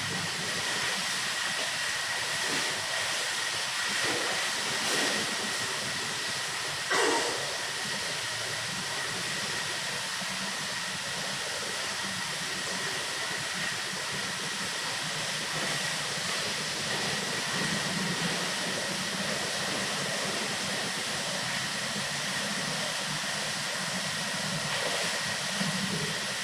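Steady rushing hiss of water pouring from wall spouts into an indoor pool, with a faint steady whine on top. A swimmer's splashes come now and then, the sharpest about seven seconds in.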